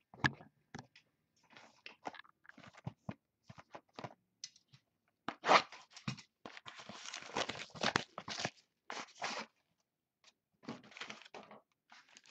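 Plastic shrink wrap being torn and crumpled off a sealed trading-card box, with scattered crackles at first and a longer, louder stretch of crinkling in the middle.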